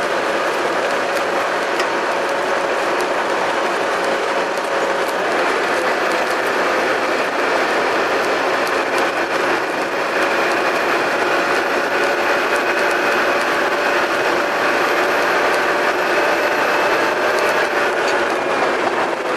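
Three-axle double-decker bus running under way, heard close to its engine: a steady drive noise with several whining pitches that shift slightly, and light rattling clicks throughout.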